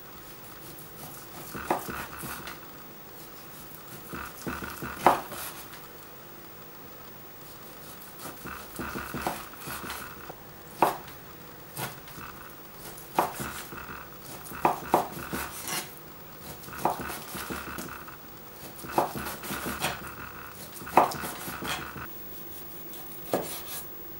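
Chef's knife slicing raw lean beef on a wooden cutting board: short sawing strokes through the meat, each ending in a sharp knock of the blade on the board, every second or two.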